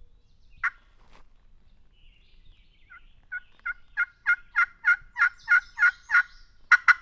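Wooden turkey box call worked by hand, giving hen yelps: one lone note about half a second in, then a run of about ten evenly spaced yelps from about three seconds in, quickening into faster, louder notes near the end.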